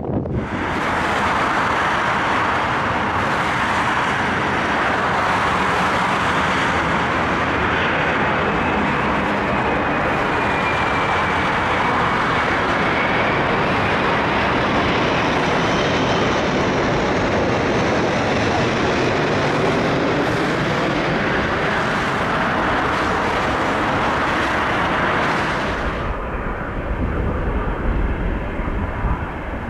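Airbus A380 jet engines running loud and steady as the airliner passes, with a faint whine that slowly bends in pitch. It cuts off suddenly near the end to a quieter low rumble of wind on the microphone.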